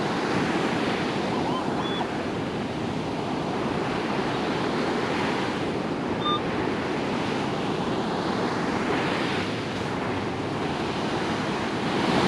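Ocean surf breaking and washing up the beach in a steady rush, with some wind on the microphone.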